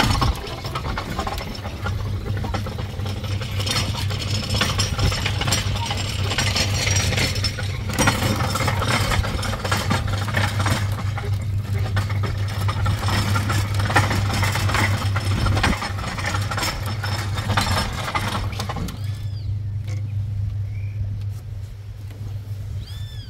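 Vehicle engine idling steadily, with clattering and knocks over it. About nineteen seconds in the clatter stops, leaving mostly the engine hum.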